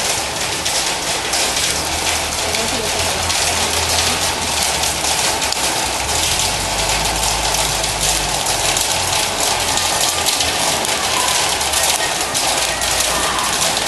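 Rain falling steadily on a metal building's roof, a dense even patter, with a low hum underneath.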